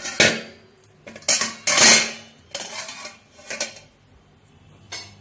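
A stainless steel strainer being set down into a steel bowl: a series of metal clanks and scrapes, the loudest about two seconds in.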